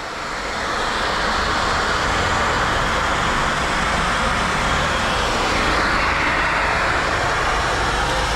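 Kärcher NT 15/1 Premium wet/dry shop vacuum running with its 1400 W motor: a steady, loud whooshing drone that comes up to full level over about the first second and then holds.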